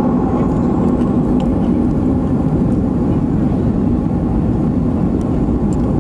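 Steady engine and airflow noise inside the cabin of a Boeing 737-500 with CFM56-3 turbofans, a deep, even rumble with no change in pitch, plus a few faint light ticks of cabin rattles.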